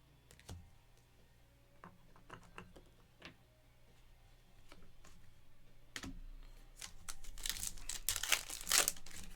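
Trading cards handled at the table, with light clicks and taps, then from about six seconds in a louder crinkling and rustling of foil pack wrappers.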